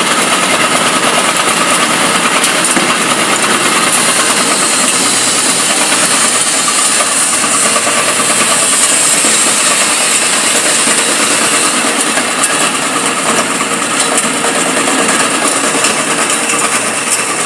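Screw conveyor running steadily, its motor and auger carrying dry granular material, with a steady hiss of the material pouring through it.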